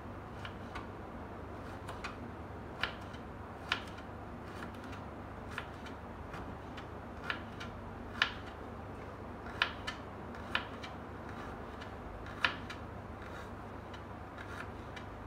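Kitchen knife chopping a red onion on a wooden cutting board: sharp, irregular taps of the blade striking the board, some louder than others.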